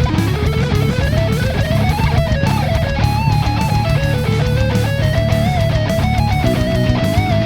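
Schecter Omen Elite-6 electric guitar with a heavy metal tone. A lead line climbs steadily in pitch for the first two seconds, then moves into held notes with vibrato over a dense, heavy low end.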